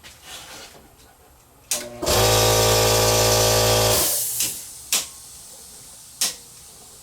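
Air compressor motor kicking on with a click and running for about two seconds with a steady electric hum and hiss, then cutting off. A couple of sharp clicks follow near the end.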